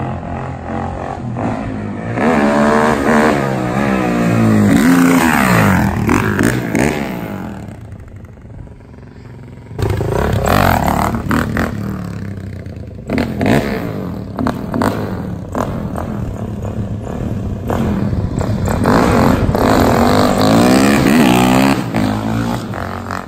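Suzuki DR-Z400's single-cylinder four-stroke engine, running on a freshly fitted Keihin FCR carburetor, revving and accelerating through the gears as the bike is ridden, its pitch rising and falling again and again. It fades about eight seconds in, then comes back loud.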